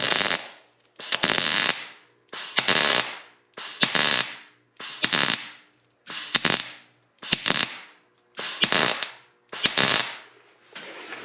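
Electric arc welder crackling in about nine short bursts, roughly one a second, building up weld on the end of a broken-off stud.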